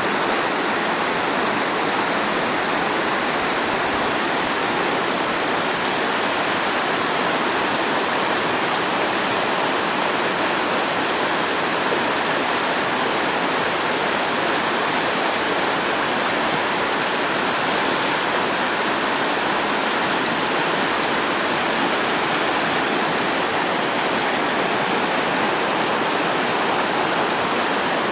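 Steady rush of a shallow, stony river running over rapids and riffles.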